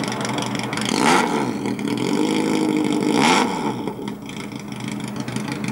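Racing hydroplane's inboard engine running and being revved, its pitch rising and falling, with two loud surges about two seconds apart.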